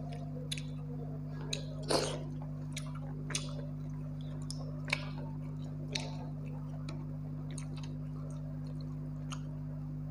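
Close-up eating sounds: irregular wet clicks and smacks of chewing and of fingers mixing soaked rice into mutton gravy, the loudest about two seconds in, over a steady low hum.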